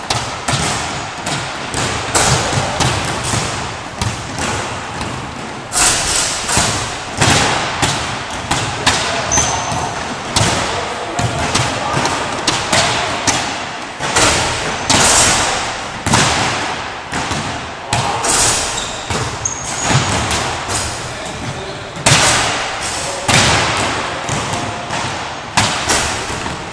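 Several basketballs bouncing on a wooden gym floor: irregular thuds, often a few a second, echoing in a large hall.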